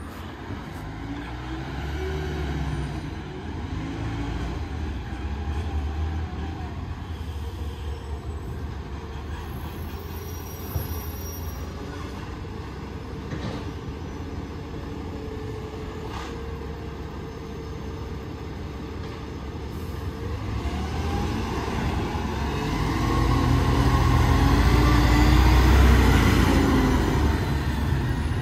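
Garbage truck engine running, with a whine rising in pitch and growing loudest in the last few seconds as the truck drives past.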